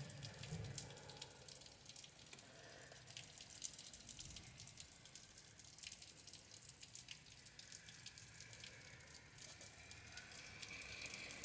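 Faint, steady rain falling, with many small scattered drop ticks.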